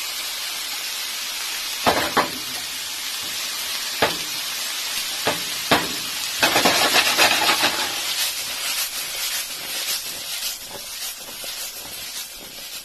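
Vegetables sautéing in a hot pan as peppers go in: a steady sizzle with a few sharp knocks of a utensil against the pan, then a louder surge of sizzling about six and a half seconds in that slowly dies down.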